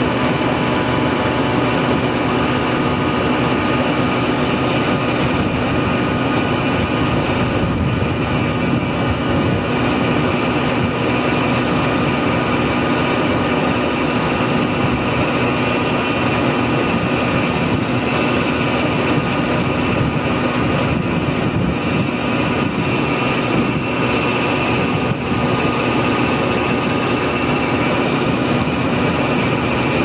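Punni Grain Cruiser combine harvester running steadily under load while unloading grain through its auger, its engine and threshing machinery making a continuous loud din with steady whining tones.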